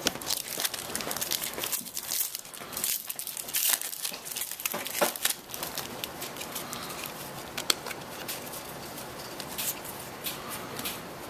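Foil trading-card pack wrappers crinkling and a stack of baseball cards being handled and flicked through, in irregular rustles and small sharp clicks.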